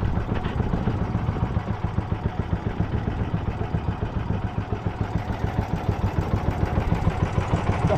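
Motorized bangka's engine running with a steady, even putter that does not change in speed.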